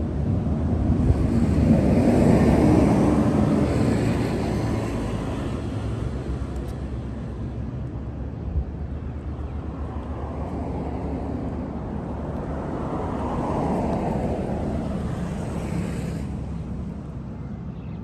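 Outdoor traffic noise: a broad rumble and hiss that swells and fades twice, about two seconds in and again about thirteen seconds in, as vehicles pass.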